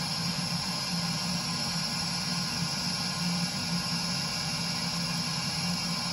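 Burnham Alpine boiler's combustion blower running steadily, a constant whoosh with a low hum. The boiler is in its drive-lightoff stage before ignition, held there for over a minute on a boiler with a hard-lockout fault.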